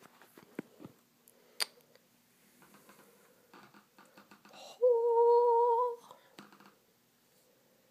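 A woman's voice hums one held, fairly high note for about a second, around five seconds in. Before it, faint clicks and rustling of the phone being handled as it is turned.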